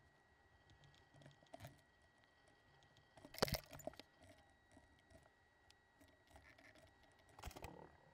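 Near silence with a few faint, scattered clicks and taps, the sharpest cluster about three and a half seconds in and another near the end, over a faint steady high-pitched whine.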